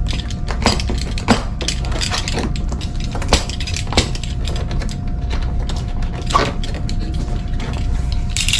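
A cardboard speaker box being handled and cut open with a utility knife: scattered sharp clicks and knocks, over a steady low hum.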